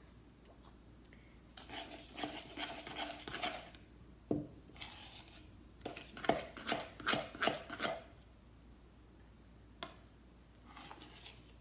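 Spoon scraping and clinking against a mixing bowl as a thick fluffy-slime mixture is stirred, in uneven bursts with a single sharp knock a little over four seconds in.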